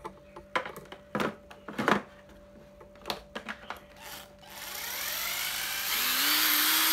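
A few handling clicks and knocks, then a 12 V cordless impact driver run with no load: the motor whine climbs in pitch as the variable-speed trigger is squeezed in, then holds steady and loud.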